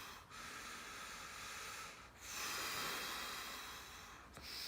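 A person breathing audibly in long, slow breaths of about two seconds each, while the hands are pressed under a massage therapist's feet.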